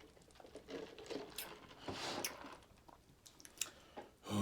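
A person chewing and biting fried chicken wings close to the microphone, with irregular crunches and wet mouth clicks, and a louder burst near the end.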